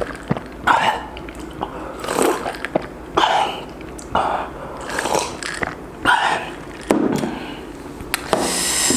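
Close-miked biting and chewing of spicy sauce-coated fried chicken: short, noisy, wet chews coming about once a second.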